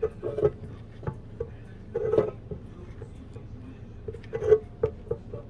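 Irregular knocks and clanks of hard parts being handled, each with a short ring, loudest about two seconds in and again about four and a half seconds in, over a faint steady low hum.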